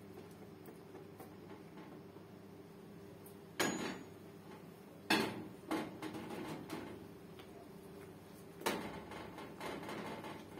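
A spoon stirring chocolate cream quickly in a stainless-steel pot, scraping round the pot, with several sharp clinks against the metal, the loudest about three and a half, five and nine seconds in.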